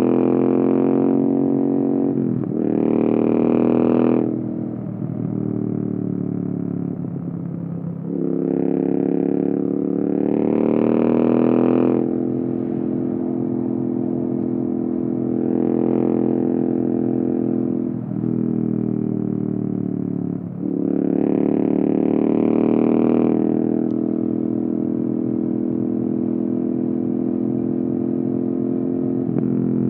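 Royal Enfield Interceptor 650's 648 cc 270-degree parallel-twin engine running through free-flow headers and unbaffled mufflers under acceleration. The exhaust note climbs in pitch and gets louder in several pulls, each broken by a brief dip at a gear change. It settles into a steady cruise in the last few seconds.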